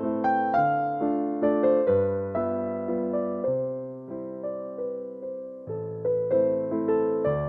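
Background piano music: a slow melody of struck notes that ring and fade, over held bass notes.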